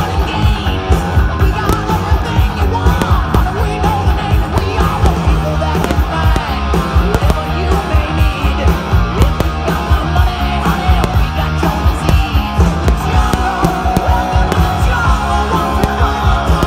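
Loud rock music with a steady driving beat.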